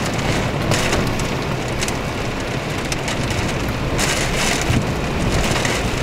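Storm surf breaking over a rock breakwater in high wind: a continuous rushing of churning water and spray, with louder hissing surges about a second in and again about four seconds in.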